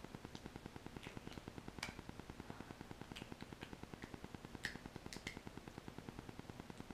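Faint, scattered sharp clicks and taps from a small child eating at a table, the loudest about two seconds in and again near the middle, over a steady fast ticking of about eight ticks a second.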